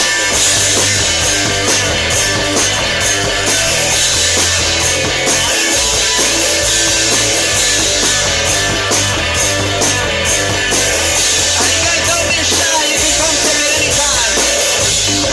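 One-man band playing a rock song live: electric guitar strummed over a self-built drum kit with cymbals played by foot. The drums and cymbals come in right at the start, joining the guitar, and the music then runs on loud and steady.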